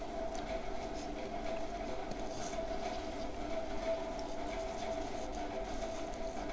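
Steady background hum with a few faint, soft clicks.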